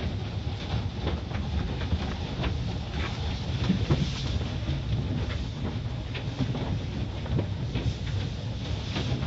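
Automatic car wash running: water spray hitting the car and a steady low rumble of wash machinery, heard from inside the car, with scattered clicks and knocks.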